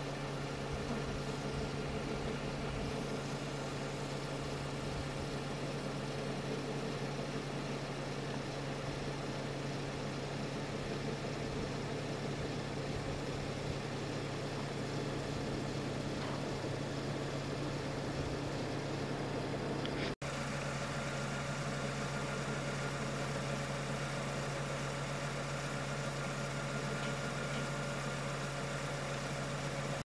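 A vehicle engine idling: a steady, even low hum that drops out for an instant about twenty seconds in.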